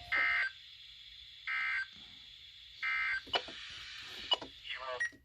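NOAA Weather Radio's EAS/SAME end-of-message signal: three short bursts of screechy digital data tones, each about a third of a second long and about 1.4 seconds apart, marking the end of the weekly test broadcast. A few clicks and short noises follow near the end.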